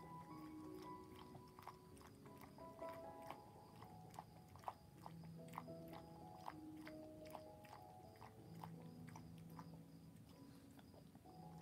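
Soft, slow background music with long held notes, over an old dog's irregular chewing and clicking as it eats from a bowl; one click stands out sharply about halfway through.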